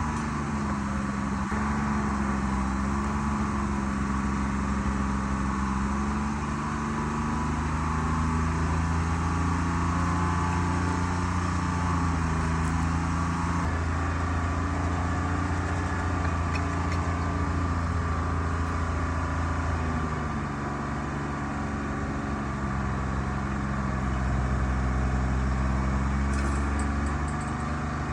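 Diesel engine of a Tree Farmer forwarder running steadily under varying load, its note wavering slightly and dipping about two-thirds through before coming back up.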